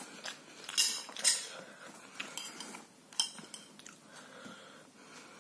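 A fork clinking and scraping against a plate while scooping up noodles, with a few sharp clinks, the loudest two close together about a second in.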